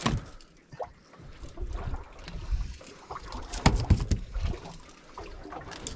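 Wind and water noise around a small fishing boat, with a few knocks and thumps; the loudest comes about three and a half seconds in.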